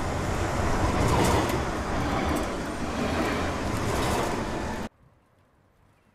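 Loud outdoor noise, a deep rumble with hiss over it, that cuts off abruptly about five seconds in.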